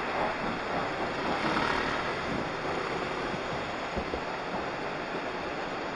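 Steady wind rush buffeting a helmet-mounted camera's microphone while riding along a road.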